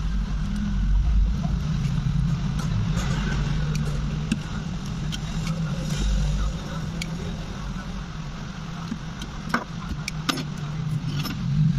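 A steady low mechanical hum, like running vehicle engines, throughout. A few light, sharp clicks stand out near the end as the opened phone's parts are handled.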